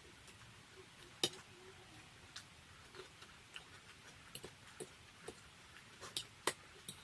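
Close-up mouth sounds of eating noodles with a fork: irregular sharp clicks and smacks from chewing and the fork. The loudest comes about a second in, with another near the end.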